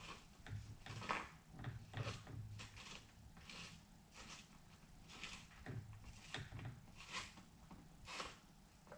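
Scattered light clicks and scrapes of metal parts being handled as a new 6903 sealed bearing is worked into a mountain bike's suspension pivot with a rod.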